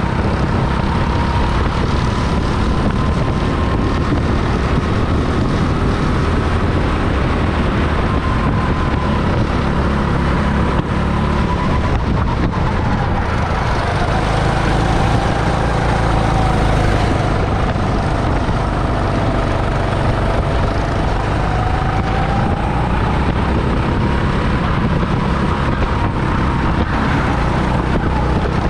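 Rental race kart's motor running hard on track, its whine slowly rising and falling in pitch as the kart speeds up and slows through the corners, over a steady rushing noise.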